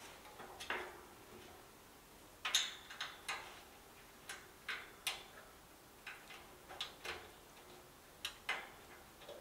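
Light clicks and taps of hands and a small metal pin on the sheet-metal panels of a pink IKEA TESAMMANS cabinet being fitted together, about a dozen, irregularly spaced, the loudest about two and a half seconds in.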